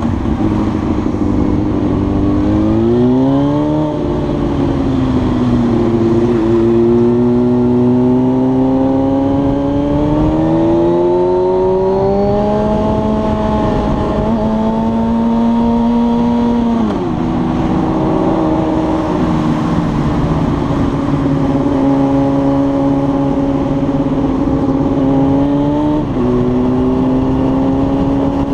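Honda Hornet's inline-four engine under way, its pitch climbing with the throttle and dropping at gear changes and when easing off, several times over, with steady wind rush underneath.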